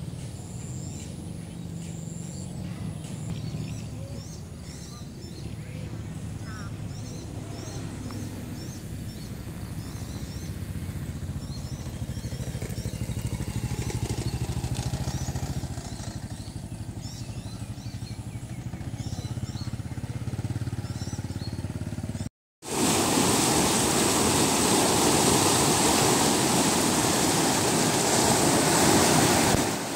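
Loud, steady rushing of fast-flowing floodwater, a torrent of brown water pouring over a road edge, which starts abruptly about two-thirds of the way through. Before it there is a quieter low rumble with scattered high chirps.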